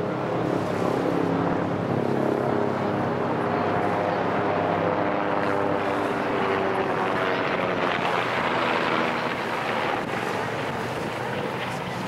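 Tour boat's engine running steadily under a constant rush of wind on the microphone.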